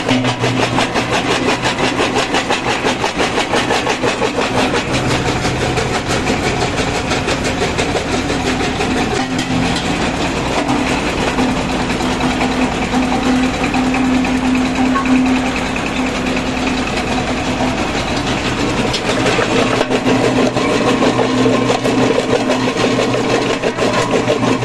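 Single-cylinder diesel engine running steadily with fast, even firing pulses, driving a small stone jaw crusher through a V-belt and pulley while brick is crushed between the jaws.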